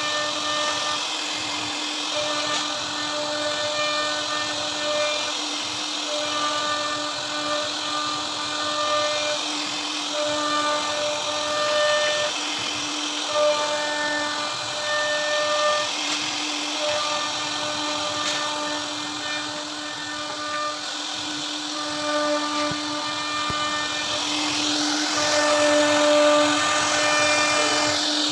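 CNC router spindle running with a steady whine as its bit carves a relief pattern into a wooden door panel, getting somewhat louder near the end.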